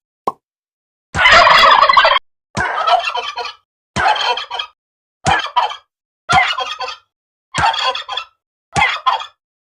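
A series of turkey gobbles, about seven separate calls with short silent gaps between them; the call about a second in is the longest and loudest.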